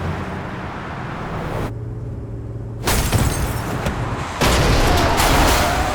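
Layered film sound effects. A low rumble runs under everything and goes muffled for about a second. Then comes a sudden hit about three seconds in, and a louder boom-like burst of noise near the end.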